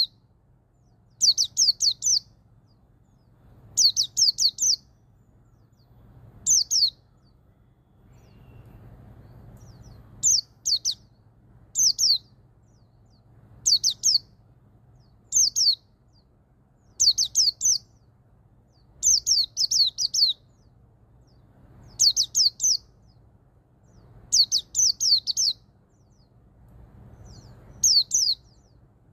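White-eye (pleci) singing its ngalas song: short bursts of one to five quick, high, descending notes, repeated every couple of seconds.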